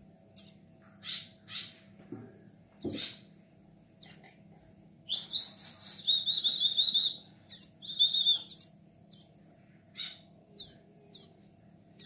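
Juvenile plain prinia (ciblek sawah) calling: short, sharp, high chirps that slide downward, repeated irregularly, with a rapid buzzy trill about five seconds in lasting about two seconds and a shorter trill a little later.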